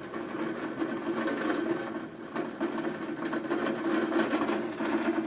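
Heavy downpour: rain pelting down steadily in a dense, rapid patter of drops, with a steady low hum underneath.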